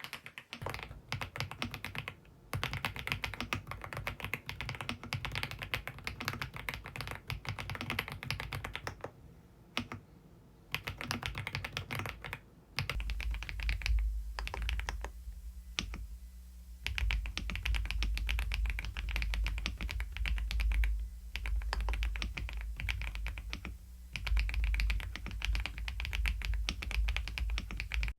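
Fast, continuous typing on a full-size mechanical keyboard, in runs of rapid keystrokes with brief pauses. About halfway through, the strokes take on a deeper, heavier low thump.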